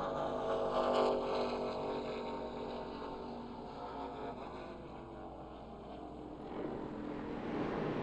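NASCAR Truck Series race trucks' V8 engines running at caution pace as the field files past. The engine note fades in the middle and builds again near the end.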